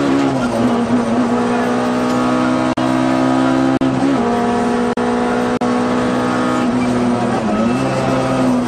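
Peugeot 106 A5K rally car's engine heard from inside the cabin, held at high revs at full throttle. Its pitch dips briefly three times and comes straight back up. The sound cuts out for an instant a few times.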